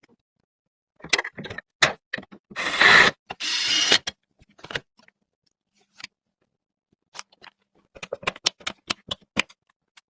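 Computer parts being handled and fitted during a PC build: a few sharp clicks, two longer scraping rustles about three seconds in, then a quick run of clicks and taps in the last couple of seconds.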